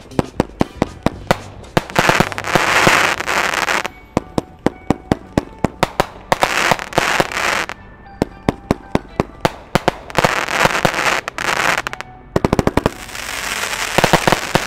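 Astro XL aerial firework cake (49 shots, 1-inch tubes) firing: quick launch thumps about four a second, with four stretches of crackling hiss from the bursts overhead.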